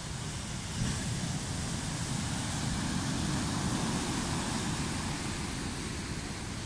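Rough sea surf breaking and washing up a beach in a storm swell: a steady rush of foaming water that grows louder under a second in as a wave breaks, then slowly eases.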